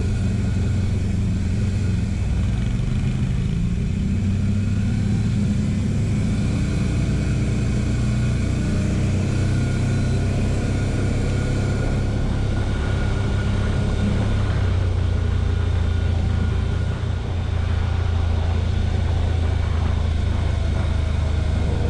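TGB Blade 1000 quad's engine running continuously while riding on a gravel track, its pitch rising and falling gently with the throttle, over a steady rumble of tyre and road noise.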